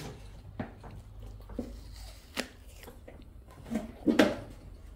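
A few separate knocks and clicks as the plastic top cowling of a Yamaha 8 hp Enduro outboard motor is unlatched and lifted off, the loudest about four seconds in, over a low steady hum.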